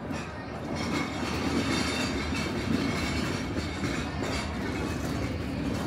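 A passing vehicle's steady rumble with a rattling clatter, swelling slightly just after the start.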